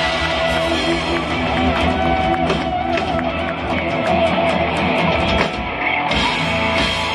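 Live rock band playing electric guitar, keyboard and drums, with a run of quick drum and cymbal hits through the middle and a brief drop about five and a half seconds in before the full band comes back.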